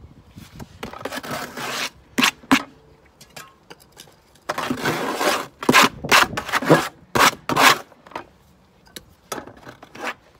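Brick trowel scraping and scooping mortar in a plastic bucket: rough scrapes, a longer one about halfway through, then a quick run of short sharp strokes as the mortar is worked and loaded onto the trowel.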